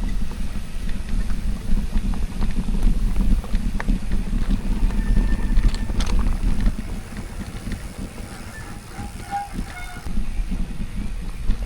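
Wind buffeting the microphone on a moving mountain bike: a loud, uneven low rumble that eases for a few seconds past the middle, then picks up again.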